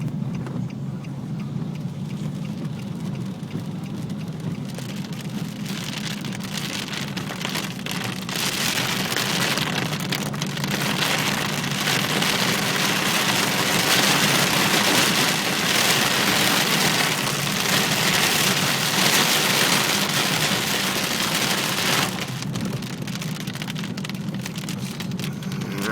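Heavy rain pouring down. It builds from about eight seconds in, is heaviest through the middle and eases near the end, over a steady low hum.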